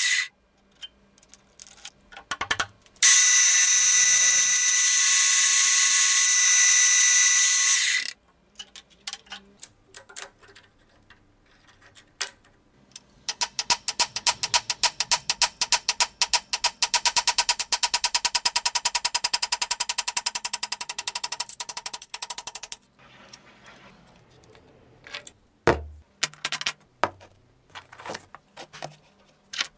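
Milling machine drilling into a steel block, a loud steady spindle tone for about five seconds. Later a ratcheting hex driver tightens an M8 bolt holding a die cover to a power hammer's flat die, a fast even clicking of about five clicks a second for some ten seconds. Near the end come a few knocks of steel pieces set down on a workbench.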